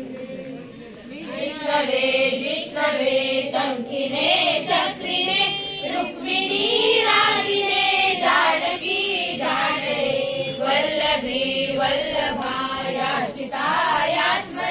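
A group of children singing a devotional song together. The singing is soft at first and comes in strongly about a second and a half in.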